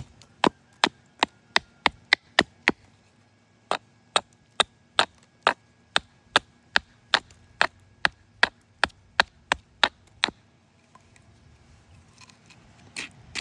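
Hatchet hewing the flat face of a split cherry-wood spoon blank: a long run of quick, sharp chops, about two to three a second. There is a short break about three seconds in, and the chopping stops about ten seconds in.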